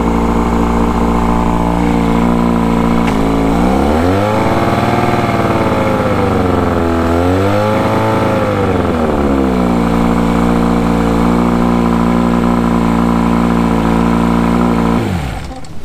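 A 1972 Mercury Thunderbolt 500, a 50 hp four-cylinder two-stroke outboard, running at idle. It is revved twice, about four and eight seconds in, and drops back to idle each time. Near the end it is shut off and runs down to a stop.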